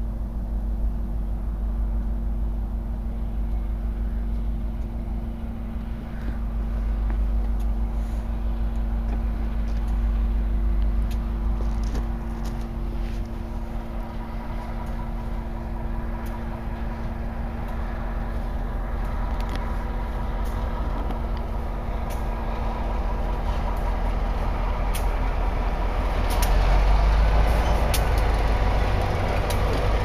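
Diesel freight train passing: a low, steady rumble with faint steady engine tones at first, then the rattle of freight cars rolling by with many short clicks from the wheels and cars, growing louder toward the end.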